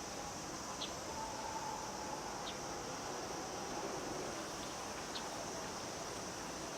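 Cicadas singing in a steady, unbroken chorus, with a few short high chirps spaced through it.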